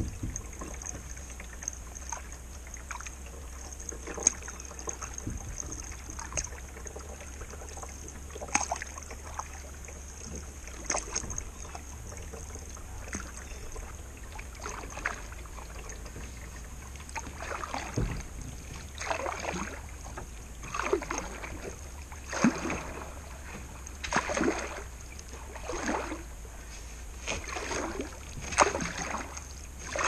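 Canoe paddle strokes in calm river water. There are scattered sharp clicks in the first half, then a regular splash of the paddle about every second and a half through the second half.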